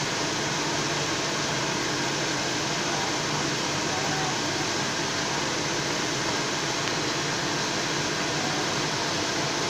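Mechanical bull ride's machinery running steadily: an even whir with a faint low hum.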